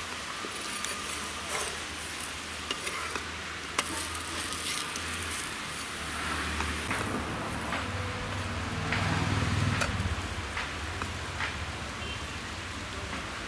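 Chapati sizzling on a hot iron tawa, with short taps and scrapes of a steel spatula pressing and turning it. A low rumble underneath swells about nine seconds in.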